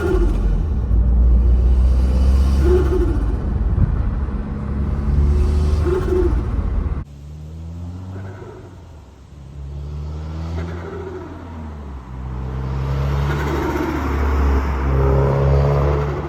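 Subaru WRX's turbocharged flat-four engine revved repeatedly in short blips over a low rumble, with turbo spool and flutter from the bypass valve as the revs drop. The sound changes abruptly about halfway through, becoming quieter with more rushing air around each rev.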